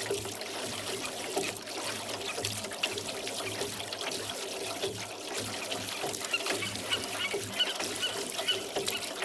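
Water trickling and splashing as oars dip into the lake and drip off the blades while a rowboat is rowed.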